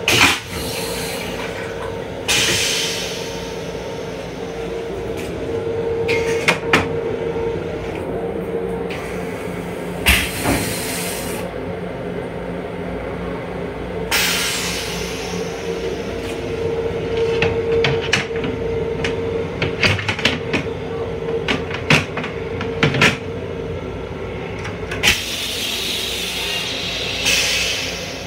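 Inside the restroom of an LIRR M7 electric railcar: the car's steady running hum with a held tone, frequent rattles and knocks, and several bursts of hissing lasting a second or more.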